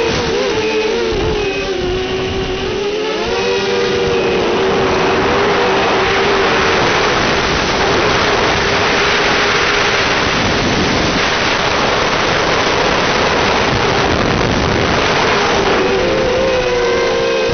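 A drone's electric motors and propellers whirring, the pitch wavering up and down with the throttle in the first few seconds and again near the end, under a steady hiss.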